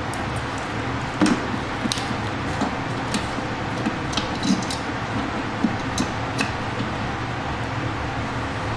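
Scattered small clicks and light clinks of LED headlight bulbs and their connectors being handled and tried against a headlight housing, over a steady low hum.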